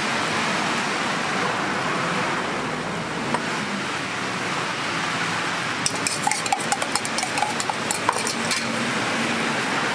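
A metal spoon beating egg and cabbage batter in a stainless steel mug, clinking rapidly against the sides for a couple of seconds starting just past the middle. Under it is a steady sizzling hiss from the hot griddle.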